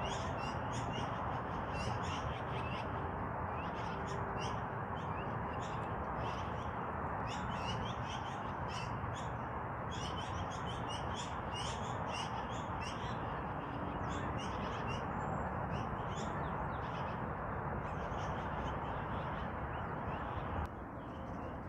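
Yellow-billed magpies calling: a dense run of short, harsh calls, one after another, over a steady rushing background noise.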